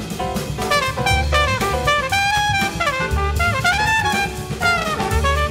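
Music playing: a drum kit under a lead melody that steps and slides in pitch, in a jazzy style.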